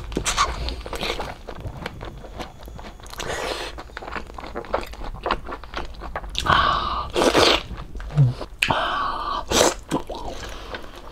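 A person eating close to the microphone: chewing and biting with wet, crackling mouth noises, and a few louder bites along the way.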